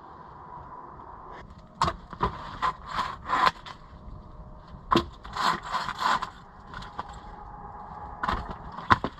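Dry wood being struck and cracking: a series of sharp knocks and cracks in three bunches, one around two to three seconds in, one around five to six seconds in, and a last pair near the end.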